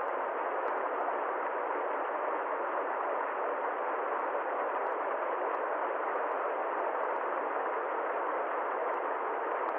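Small waterfall splashing between rocks, a steady even rush of falling water with no change in level.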